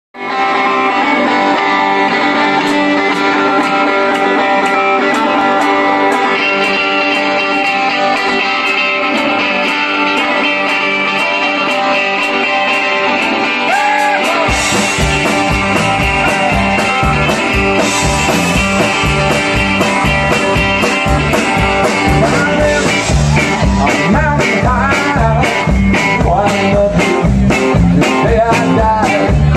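Live band playing electric rock: the electric guitars play alone at first, then bass guitar and drums come in about halfway through with a steady beat.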